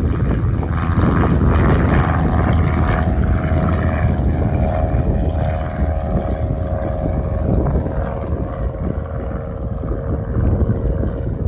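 A motor running steadily, its hum holding one pitch over a heavy low rumble.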